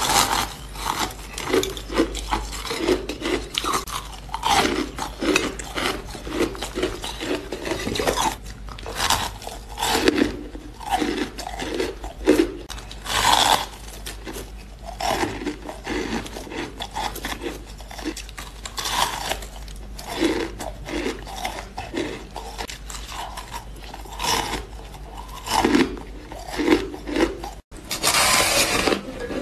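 A person biting and chewing soft shaved ice close to the microphone: rapid crunching, several crunches a second, with a few heavier bites. Near the end comes a longer, louder crunch as a frosty ice block is bitten into.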